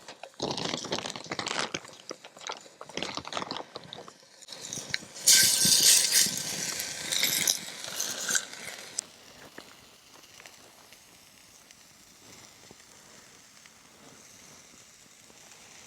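Crackling and clicking for about four seconds, then a sudden loud sizzle about five seconds in, as steak meets a hot cast iron pan over a campfire. The sizzle dies down after about four seconds.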